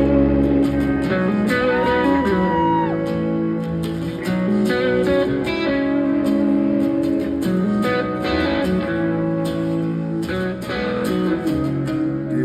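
Instrumental intro of a country-rock song: guitars playing over a steady beat, with one guitar note sliding up, holding and sliding back down about two seconds in.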